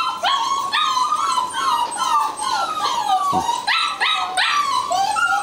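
Rottweiler puppies, about seven weeks old, whining and yelping nonstop in short, high, falling cries. At least two voices overlap at slightly different pitches.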